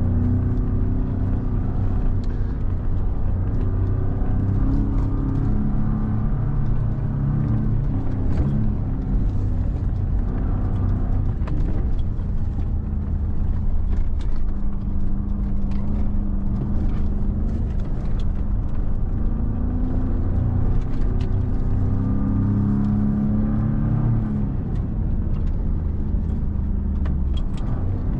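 2017 Ford Raptor's 3.5-litre twin-turbo V6 running under changing throttle while the truck is driven off-road, heard from inside the cab. The engine note rises and falls every few seconds, with frequent sharp clicks and knocks over it.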